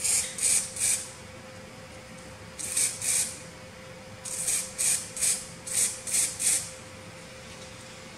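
Aerosol spray-paint can sprayed in short bursts: about eleven quick hisses in three groups, three near the start, two a few seconds in, then six in quick succession.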